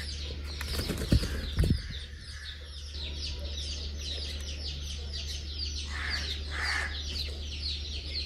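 Chickens and chicks: a continuous stream of rapid high peeps, several a second, with two short clucks about six seconds in. Two sharp knocks come about a second in.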